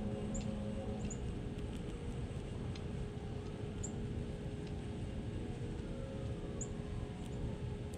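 Outdoor background of a steady low rumble, with a few short, high bird chirps scattered through it, four in all.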